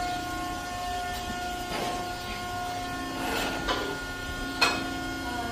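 Hydraulic pump of a livestock tilt squeeze chute running with a steady hum, its tone shifting lower about three seconds in. A few sharp knocks from the chute's frame sound in the second half, the loudest near the end.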